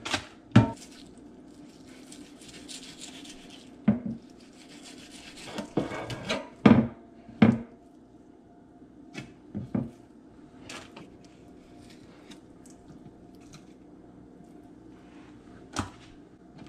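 A wooden cutting board and the fish fillets on it being handled: scattered sharp knocks and clacks, with two stretches of scraping or rubbing in the first half.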